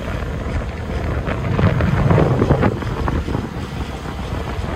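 Wind buffeting the microphone of a slowly moving vehicle, over a low engine and road rumble. The buffeting surges loudest about two seconds in.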